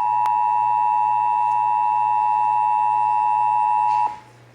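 Emergency Alert System attention signal: a steady two-tone alert of about 853 and 960 Hz sounding together, which marks the start of an emergency alert message, here a required monthly test. It cuts off sharply about four seconds in, leaving a faint hum.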